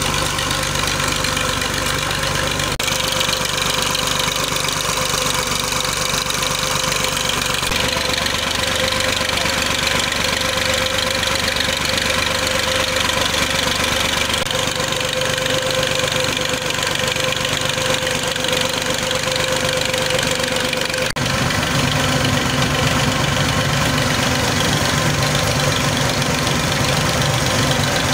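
Tractor's diesel engine running steadily under load, driving a mustard oil expeller. The sound changes abruptly about 3 seconds and about 21 seconds in, fuller and lower after the second change.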